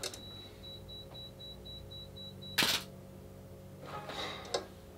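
Self-timer beeping on a Pentax 67II medium-format film camera, quickening to a fast beep, then the shutter fires with one loud clack about two and a half seconds in.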